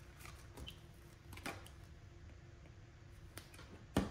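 Quiet handling of paper: a page of a ring-bound planner being turned, with soft scattered taps and rustles. A single sharp click near the end.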